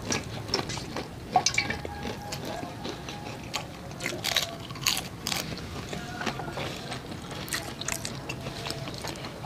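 Close-up mouth sounds of people biting and chewing crunchy fried chicken: irregular crunches and wet chewing clicks, with no steady rhythm.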